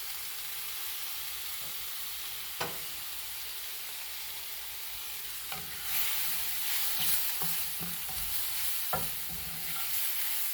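Onions and mushrooms sizzling in a frying pan. There is a single knock about two and a half seconds in. From about six seconds in the sizzle grows louder, with a spatula stirring and scraping in the pan.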